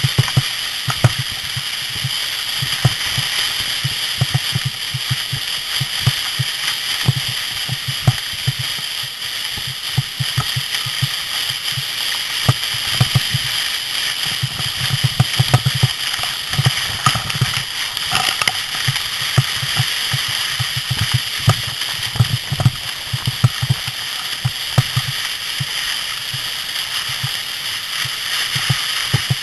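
A sled sliding fast down a packed snow run: a steady hiss and scrape of snow, with uneven low thumps of wind buffeting the microphone and scattered knocks over bumps.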